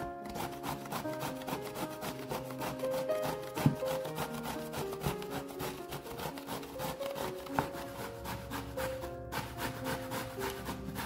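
Zucchini being grated on a metal box grater, quick repeated rasping strokes, with two sharper knocks. Piano music plays underneath.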